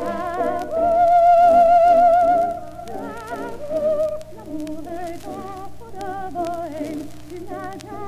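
Operatic soprano singing an aria with accompaniment, played from an old record with surface clicks. About a second in she holds one long, loud note with wide vibrato, then carries on in shorter phrases.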